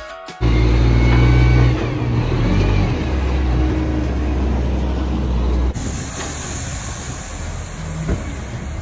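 Heavy diesel truck engines running hard while dump bodies tip and unload dirt and gravel. The engine sound starts suddenly about half a second in. Near six seconds it changes abruptly to a lighter engine sound with a hiss over it.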